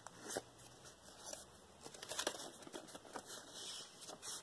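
Faint rustling and a few light taps as a paper card and a small paper notebook are handled.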